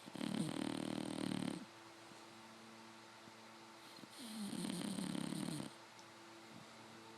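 English Bulldog puppy snoring in its sleep: two snores about four seconds apart, each lasting about a second and a half.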